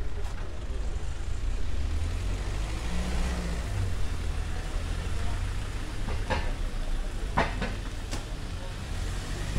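Outdoor street sound: a steady low rumble, like traffic or wind on the microphone, with a few short sharp knocks about six, seven and eight seconds in.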